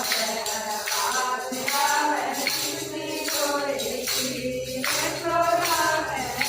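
Haryanvi devotional bhajan: a voice singing a melody over a steady jingling percussion rhythm.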